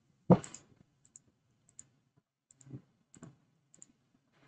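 Computer mouse clicks at an uneven pace, as on-screen settings are toggled one after another. The first click, about a third of a second in, is much the loudest; the rest are short and sharp.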